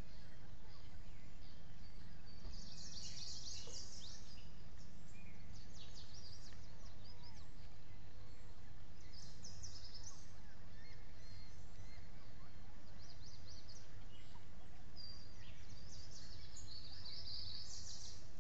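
Steady background noise with a low hum, broken several times by short bursts of high, rapid bird chirping: a few seconds in, around the middle and again near the end.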